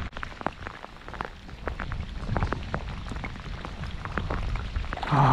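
Steady rain falling on a lake, with many irregular sharp taps of single drops.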